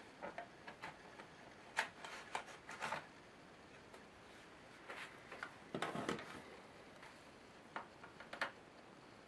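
Small clicks and taps of plastic and metal laptop parts being handled as an Asus K75VJ's optical drive is taken out, coming in short scattered clusters, with a fuller, denser clatter about six seconds in.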